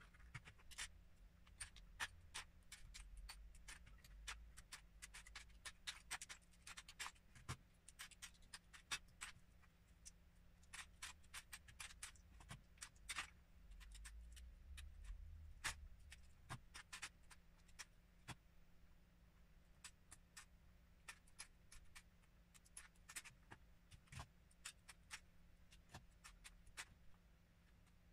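Lego bricks being pulled apart by hand as a built garbage truck model is dismantled, with many irregular sharp clicks as pieces snap off and drop into a plastic tub.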